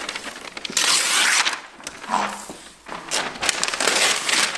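Wrapping paper being torn off a large gift box in long rips, two main bursts of tearing: one about a second in and another from about three seconds in.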